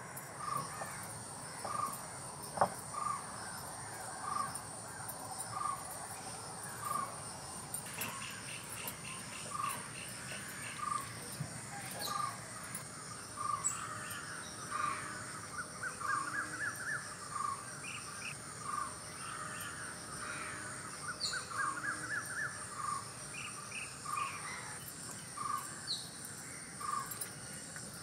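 Outdoor rural ambience: a bird repeats a short call about once a second, crows caw now and then, and crickets keep up a steady high trill. A single sharp knock comes about two and a half seconds in.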